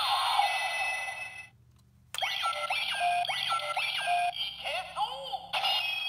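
Bandai Ryusoul Changer toy playing its electronic sound effects through its small speaker: the standard sound of a generic light-gray Ryusoul. A synthesized jingle breaks off about a second and a half in, and after a short pause a repeating tune of sweeping electronic tones follows.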